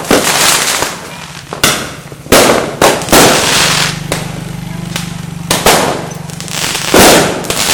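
Fireworks going off: a string of sharp, loud bangs at irregular intervals, each trailing off, with a low steady hum underneath.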